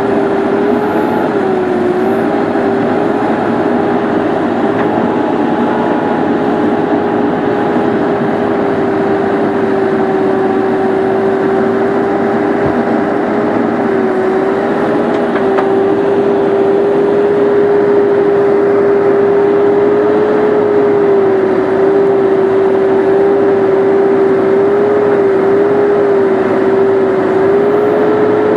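Excavator running at working speed, a steady engine and hydraulic whine over a dense machine noise that dips slightly in pitch a few times as the load changes.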